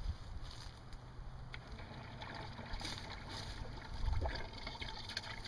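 Submersible pump circulating vinegar through a Rinnai tankless water heater's heat exchanger. About a second and a half in, a steady watery hiss with a faint hum comes in as the return hose splashes into the bucket. A low, gusty rumble of wind on the microphone runs underneath.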